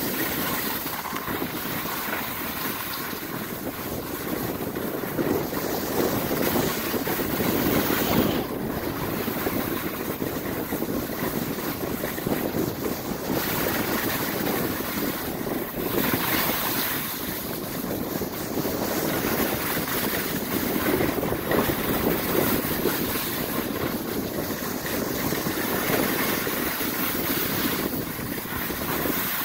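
Wind buffeting the microphone of a camera carried by a skier moving downhill, mixed with the hiss of skis sliding over packed snow, rising and falling with speed.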